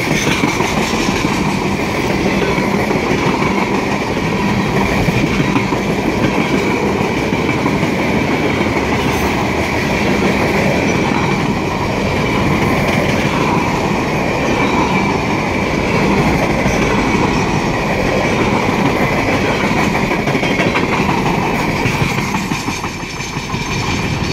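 Freight cars of a long freight train rolling past close by: steady wheel-on-rail rumble and clatter, with a steady high ringing note running through it. The noise dips briefly about a second before the end as the last car goes by.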